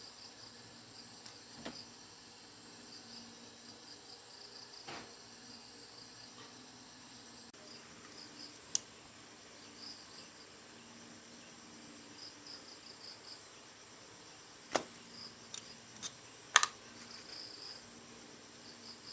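Insects chirping in short repeated pulses, faint and steady, broken by a few sharp clicks or knocks from work on the motorbike, the loudest near the end.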